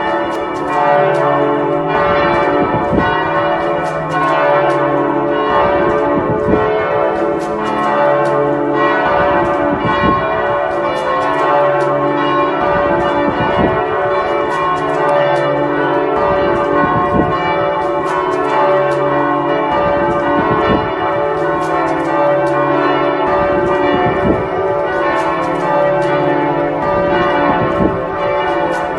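Several church bells ringing together in a continuous peal, their strikes overlapping without a break.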